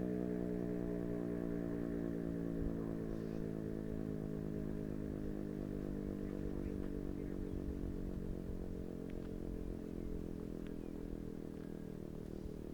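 Federal Signal Thunderbeam RSH-10 siren winding down: its low tone slowly and steadily falls in pitch as the siren coasts down after the alert signal ends.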